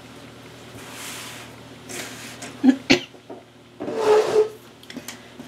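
Jigsaw puzzle pieces rustling and clicking as they are handled, with two sharp clicks a little before three seconds in. A brief pitched call follows just after four seconds.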